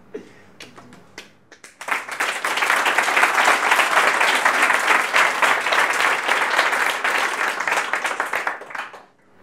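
Audience applauding: a few scattered claps at first, then the whole room clapping together for about seven seconds before it dies away near the end.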